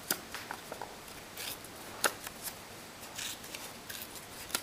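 Double-sided patterned paper being torn by hand, a few short ripping sounds, the sharpest about two seconds in.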